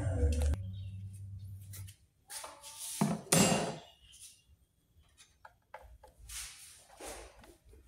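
Short bursts of clattering and scraping as hands and a tool work on a car's plastic air filter housing, loudest a couple of seconds in, with a quieter group near the end.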